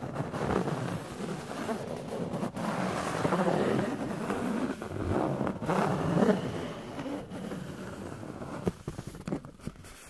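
Objects being handled: continuous scratching and rubbing, with a few sharp taps, growing quieter near the end.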